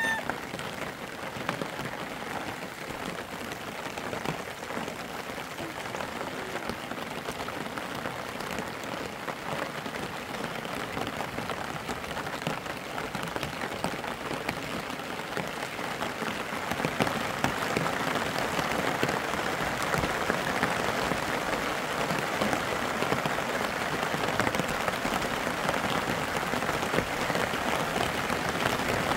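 Steady rain falling, a dense patter that grows a little louder just past the middle.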